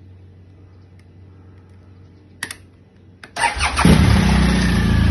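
BMW R1200GS Adventure's flat-twin boxer engine with its stock exhaust being started: a brief sound about two and a half seconds in, then near the end the starter cranks and the engine catches within a moment, comes up to speed and settles into a steady idle.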